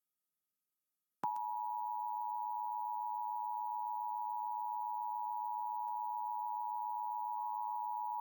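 Emergency Alert System attention signal: the steady two-tone alarm of 853 and 960 Hz sounded together. It starts abruptly about a second in, after a short silence, and holds unchanged, marking the start of an EAS required monthly test before the voice message.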